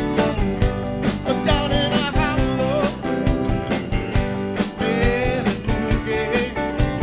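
Live rock band playing: a male singer over electric guitars and a steady drum beat.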